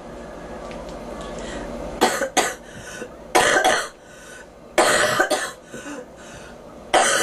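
A girl coughing hard in short bouts of about two coughs each, the first about two seconds in and then roughly every one and a half seconds.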